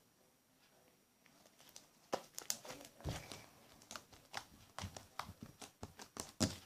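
Homemade slime being squeezed and stretched by hand, giving irregular wet clicks and small pops that start about a second in and come quickly.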